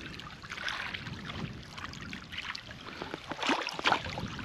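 Water splashing and sloshing as a hooked carp thrashes at the surface and is drawn into a landing net, with a few sharper splashes near the end.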